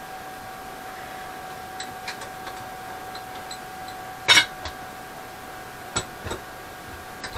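A few clanks and knocks of metal parts being handled at a workbench, the loudest about four seconds in, over a steady hum.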